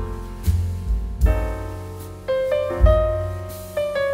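Background piano music: struck notes in a melody over deep bass notes about once a second.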